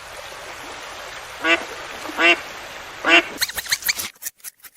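A duck quacking three times, short nasal quacks about a second apart. Near the end a rapid run of sharp clicks or taps begins.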